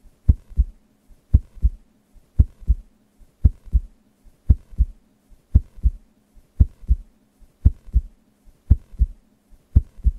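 Heartbeat sound effect: pairs of low thumps (lub-dub) repeating evenly, about one beat a second, over a faint low hum.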